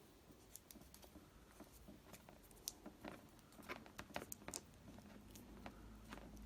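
Faint, scattered crinkling and small clicks of PVC insulation tape being handled and wrapped around two thin low-voltage wires, busiest about halfway through.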